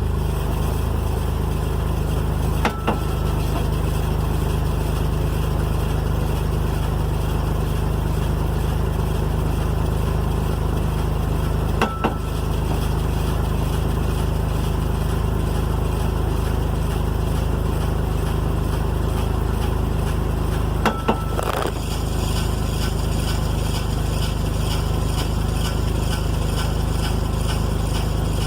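Truck engine running with the rear wheels spinning in first gear, broken by a sharp metallic clunk from the rear driveline three times, about every nine seconds. The clunk comes only with the brake pedal pressed, and its cause is not found; the rear differential is suspected.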